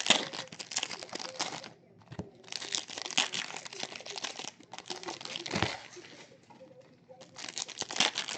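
Trading card pack wrappers and packaging being crinkled and torn open, in several bursts of crackling with short pauses between them.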